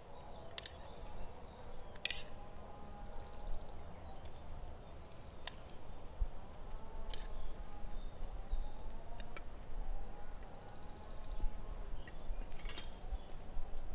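Sporadic snaps and crackles of a burning Swedish torch, a split log burning upright, over a low steady rumble. A bird trills twice in the background.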